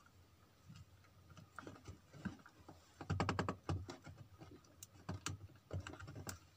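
Small plastic clicks and rattles of a tight-fitting wire-harness plug being wiggled and pulled from its socket on an amplifier circuit board, with a quick run of clicking about three seconds in.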